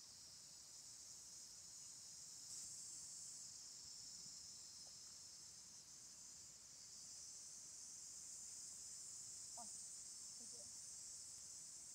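Faint, steady high-pitched insect chorus of crickets or cicadas chirring without a break. It grows a little louder about two and a half seconds in.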